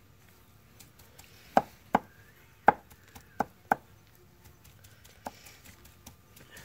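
Kitchen knife chopping offal into mince on a wooden board: about half a dozen sharp, irregularly spaced chops, most of them between two and four seconds in.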